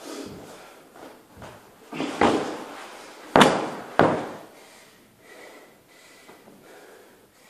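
Grappling dummy slammed down onto the floor: a few heavy thuds between about two and four seconds in, the loudest around three and a half seconds, with another close after it.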